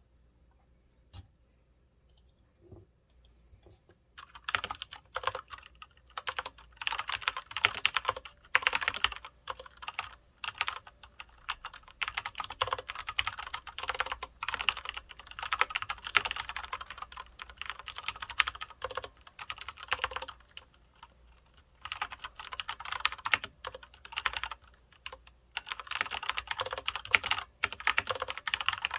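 Typing on a Filco Majestouch 2 mechanical keyboard with Cherry MX Brown switches: a few single key presses, then fast continuous typing from about four seconds in, broken by brief pauses.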